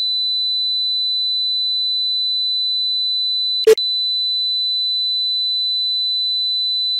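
Steady 4000 Hz sine test tone played in the left channel, then switched to the right channel about three and a half seconds in, with one sharp click and a split-second dropout at the switch.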